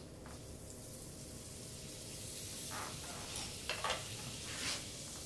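Butter sizzling as it melts in a hot frying pan: a faint, steady hiss that slowly grows louder, with a few short clicks in the second half.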